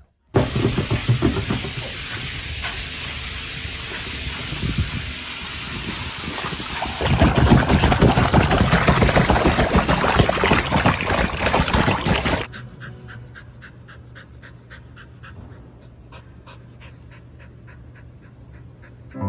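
A loud steady rushing hiss that grows louder about seven seconds in and cuts off suddenly about twelve seconds in. After it comes a much quieter stretch with a low hum and faint regular ticks.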